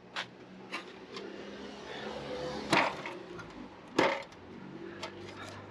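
A few sharp knocks and taps from handling a roof rack cross bar with plastic end feet and an aluminium stepladder. The two loudest knocks come about three and four seconds in.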